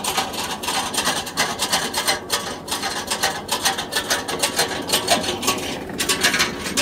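Footsteps swishing through tall grass, an uneven crackly rustling.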